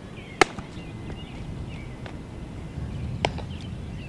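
Two sharp knocks of a baseball in infield practice: a loud crack about half a second in, and a weaker one about three seconds later.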